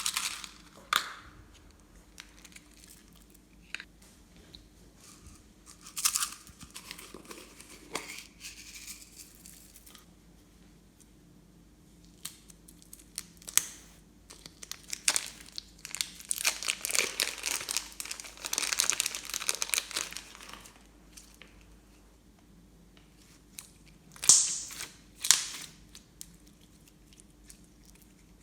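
Glossy slime being worked by hand: irregular bursts of crackling and crinkling, densest about two thirds of the way through, with two sharp louder crackles near the end.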